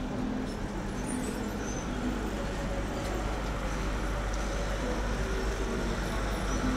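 Steady city street background: a constant low rumble of traffic with faint indistinct noise on top.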